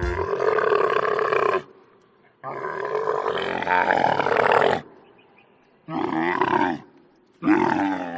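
A large animal calling four times, in long, pitched calls with short gaps between them; the second call is the longest.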